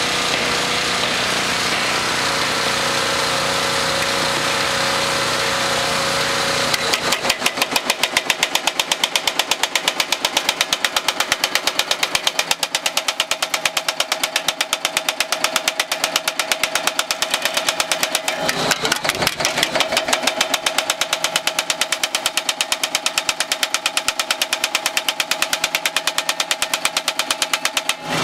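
Baileigh MH-19 power hammer running steadily for several seconds, then hammering a curved sheet-metal panel between its dies in a rapid, even rhythm of strikes.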